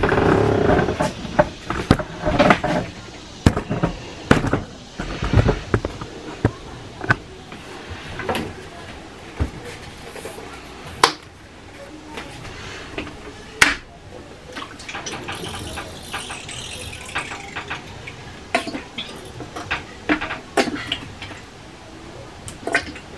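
Irregular clicks, taps and knocks of a plastic toilet-bowl-cleaner bottle and a toilet seat being handled during toilet cleaning.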